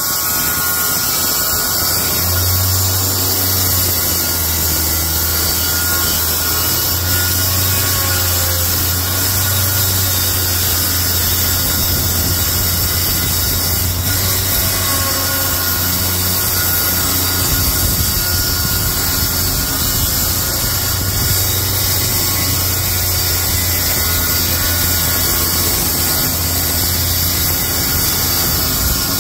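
Corded Milwaukee circular saw running steadily while cutting a long, continuous line through a sheet of plywood.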